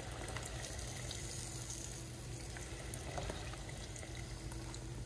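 Breaded fish frying in a pot of hot oil: a steady bubbling sizzle with small crackles throughout.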